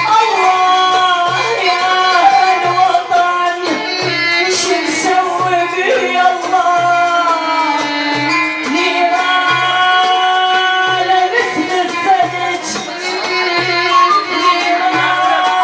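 Iraqi folk song: a woman singing with a traditional ensemble, her melody gliding and ornamented, over a low hand-drum beat about once a second.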